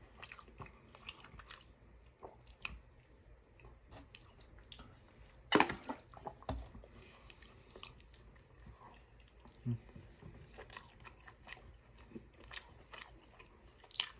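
Close-miked chewing of breaded chicken strips, with many small wet mouth clicks and crunches of the breading. A single much louder sharp sound comes about halfway through.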